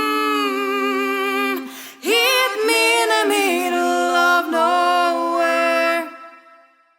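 Female voices singing long held notes without accompaniment, with a short break about two seconds in; the last note fades out about six seconds in.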